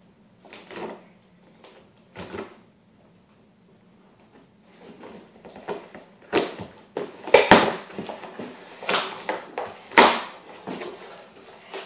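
A shipping box being opened and handled by hand, with packing cushioning inside. It makes a run of irregular scrapes and rustles: a few faint ones at first, then louder and busier from about halfway through.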